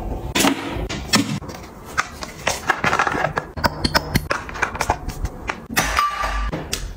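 Toiletry bottles and containers being handled and set down: a quick, irregular string of clicks, taps and knocks.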